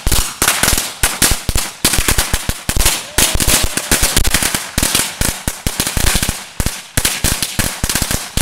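A long roll of Black Cat firecrackers going off in a continuous rapid string of sharp bangs, many a second, with no gaps.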